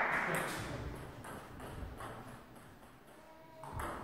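Table tennis ball clicking: a few light, scattered clicks, then sharper ball hits as a rally starts near the end.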